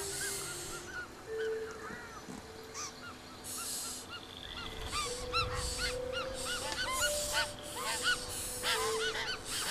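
White-winged choughs and their nestlings calling at the nest: a rapid, continual stream of short rising-and-falling chirps mixed with rasping, hiss-like calls, a begging chorus that grows busier in the second half as the chicks are fed.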